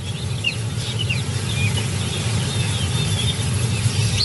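Birds chirping in many short, scattered calls over a low steady rumble that slowly grows louder.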